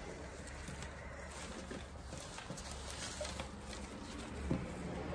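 Faint rustling and a few light clicks of artificial silk-flower stems and plastic price tags being handled and pulled apart, over a low steady hum.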